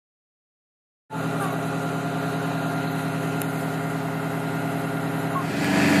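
Silence for about a second, then a fire truck's diesel engine running steadily as the aerial ladder truck stands with its bucket raised. The engine grows louder about five and a half seconds in.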